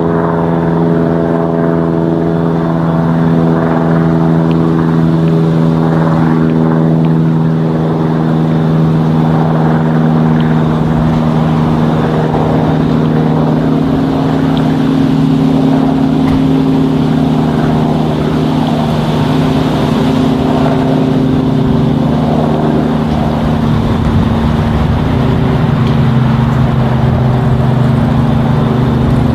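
Propeller drone of a light piston-engine airplane flying over at altitude: a steady hum of several held tones, its lower tones dropping slightly in pitch near the end.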